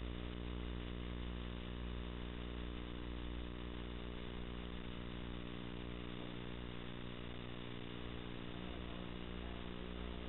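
Steady electrical buzz with many evenly spaced overtones, unchanging throughout, heard through a surveillance camera's narrow-band microphone.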